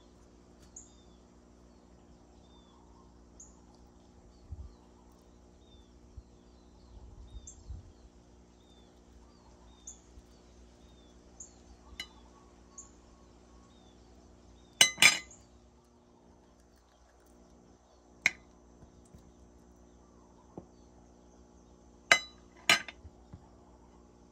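Metal spoon clinking and knocking against a ceramic plate as avocado is scooped onto it: a few sharp clinks, the loudest a quick pair partway through and another pair near the end. Birds chirp faintly throughout over a steady low hum.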